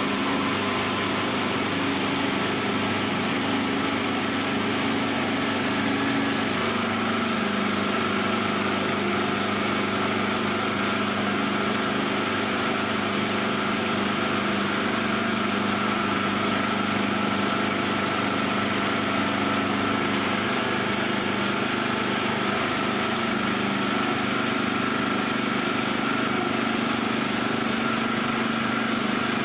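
Plastic bar doweling machine running steadily, its motor and rotating cutter head giving a constant hum with a higher whine as a square plastic bar is fed through the roller feed. The hum's tone shifts slightly lower about six and a half seconds in.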